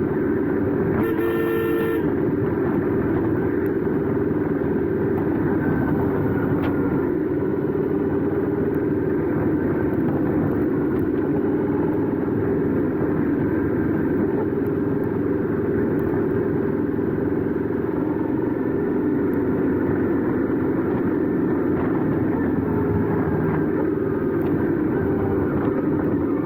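Royal Enfield 650 parallel-twin motorcycle engine and exhaust running steadily under way. A horn honks once, briefly, about a second in.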